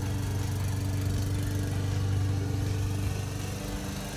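Lawn mower engine running steadily at a constant pitch.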